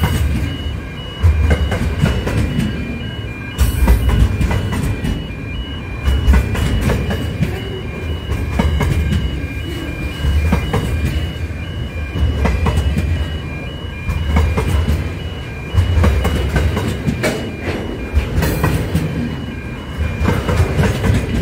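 Container freight train passing close: a steady wheel-and-rail rumble that swells every two seconds or so as each wagon's bogies go by, with clicking as the wheels cross the rail joints.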